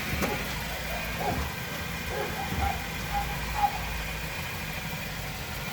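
Nissan Cube's engine idling steadily, a low even rumble, while the front brakes are bled.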